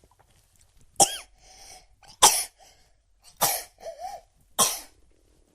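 A young child coughing four times, about a second apart, some coughs trailing into a short voiced sound.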